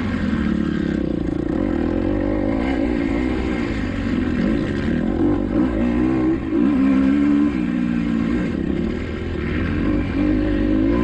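Kawasaki KX250XC dirt bike engine revving hard and easing off again and again, its pitch rising and falling with the throttle, with brief drops about six and eight and a half seconds in.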